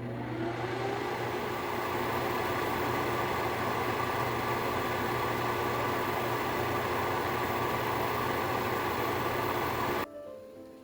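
Microwave oven running with a steady hum and whir that spins up at the start and cuts off abruptly about ten seconds in.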